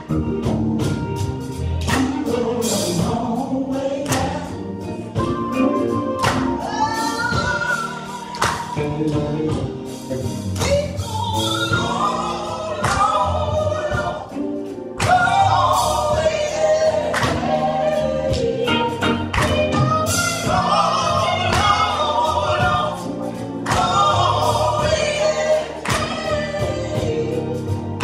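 Live gospel song: a woman sings lead into a microphone over a band of drum kit and keyboard, with other voices joining in.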